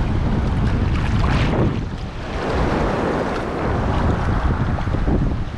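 Sea waves breaking and washing up a stony beach at high tide, with one surge about a second and a half in and a longer wash from about two to four seconds. Strong wind buffets the microphone throughout.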